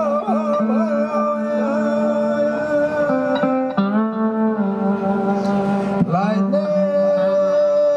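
Live band instrumental break: electric guitar playing a lead line with bending, gliding notes over steady held notes.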